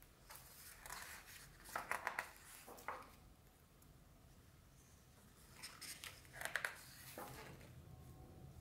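Two page turns of a large hardcover art book: each turn is a second or two of paper rustling and swishing, the first starting just after the beginning and the second about five and a half seconds in.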